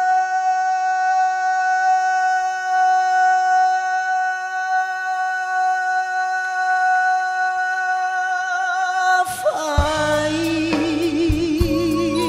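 A male singer holds one long sung note for about nine seconds with almost nothing under it. About nine seconds in, the live band comes back in with bass and drums, and the singing goes on with vibrato.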